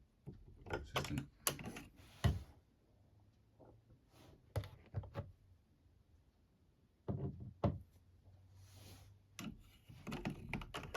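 Irregular metal clicks and knocks as a pin-and-cam decoding tool is worked inside a 7-lever safe lock, testing the levers for play. The loudest knock comes a little over two seconds in.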